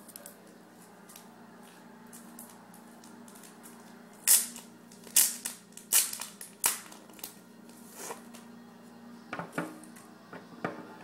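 Padded paper bubble mailer being handled and pulled open: a run of sharp crackles and crinkles starting about four seconds in, then a few more near the end.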